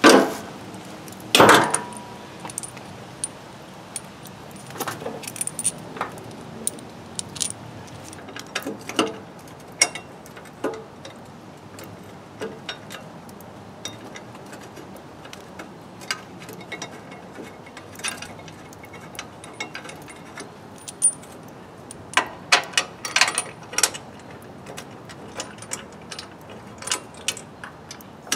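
Metal clinks and knocks as a painted steel hitch bracket and its bolts are handled and fitted against a riding mower's frame. There is a loud ringing clank about a second and a half in, scattered small clicks after it, and a quick flurry of clinks near the end.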